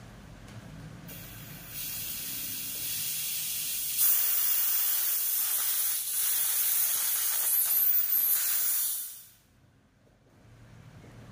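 High-pressure air hissing out of a PCP airgun's paintball regulator test rig as it is bled off. It rises about two seconds in, gets much louder about four seconds in, and cuts off about nine seconds in.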